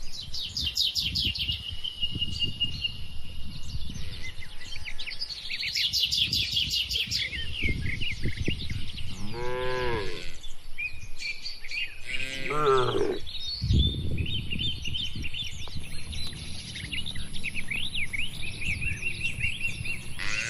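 Cow mooing twice, two drawn-out calls a couple of seconds apart about halfway through, while birds chirp throughout. There is an uneven low rumble, with a low thump just after the second moo.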